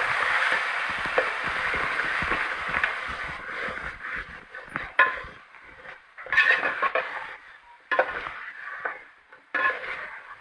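Masala of onion and spices sizzling in hot oil in a cooking pot just after a splash of water, with a spoon stirring and scraping the pot. The steady sizzle fades after about three seconds, leaving separate short stirring scrapes.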